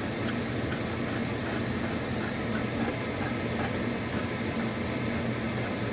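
Steady mechanical hum with a low buzz and a few faint light ticks, like an appliance running.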